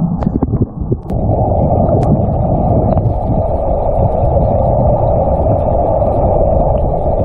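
Steady rushing of river water with low wind rumble on the microphone, with a few faint clicks in the first second.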